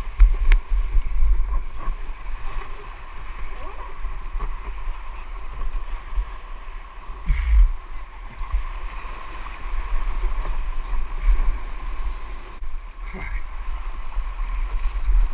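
Wind rumbling on the microphone over sloshing, splashing sea water, with a few louder splashes.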